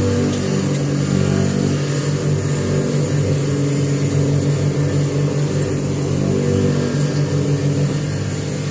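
A sword-sharpening grinder's motor running with a steady hum, level in pitch throughout.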